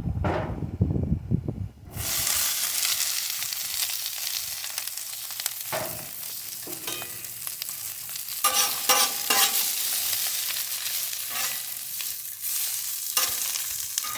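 Vegetables and oil sizzling on a hot barbecue pit, the sizzle starting suddenly about two seconds in after a low rumble, then running steadily with several short spatula scrapes as they are stirred.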